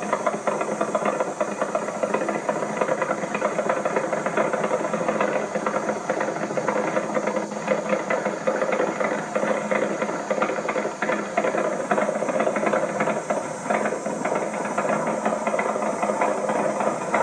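Top Fuel Harley drag bike's V-twin engine running at a steady, rough idle with a rapid, uneven beat and no revving.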